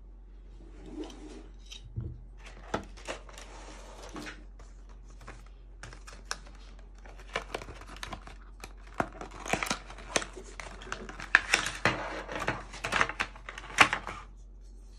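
Packaging of a USB-C card reader hub being handled and opened: the cardboard box and plastic wrap crinkle and tear, with scattered sharp clicks and taps. The handling gets busier and louder over the last few seconds.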